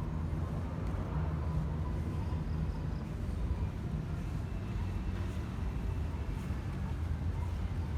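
Steady low rumble of distant city traffic, an even outdoor urban hum with no distinct events.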